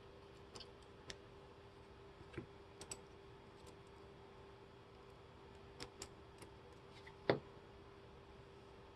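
Faint, scattered small clicks and taps of a disassembled lock cylinder, its pins and picking tools being handled, with one louder tap about seven seconds in. A faint steady hum runs underneath.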